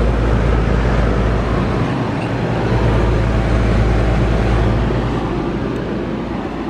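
2016/17 Rheem Classic central air conditioner condensing units running, with a steady low hum from their Copeland scroll compressors under the even rush of the condenser fans. The units are blowing cold and running normally.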